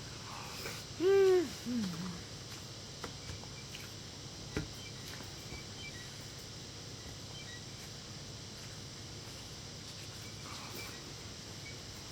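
A person's short pleased hum while eating, two rising-and-falling notes about a second in. Then a few soft clicks over a steady low hiss.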